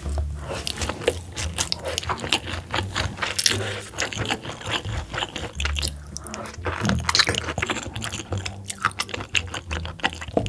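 A person chewing and eating rice and soft braised pork belly in sauce, with many short mouth clicks and smacks throughout.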